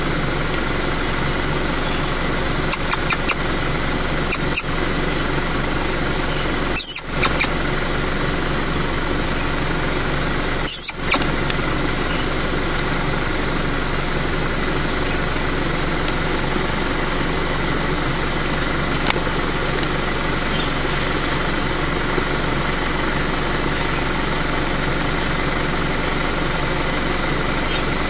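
Car engine idling, heard from inside the cabin as a steady hum, with a few brief clicks and knocks in the first dozen seconds.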